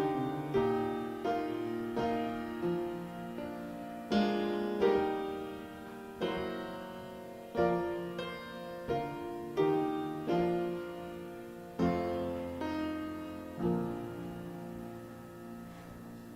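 Piano playing a slow closing postlude of struck chords, each left to ring and die away; the last chord, a little before the end, fades out.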